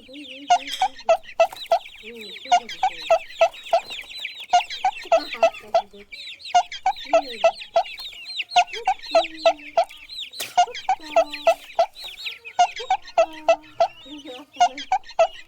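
Chickens: a dense chorus of high chick peeps, over which a lower clucking comes in quick, evenly spaced runs of notes, about three or four a second, with short pauses between runs.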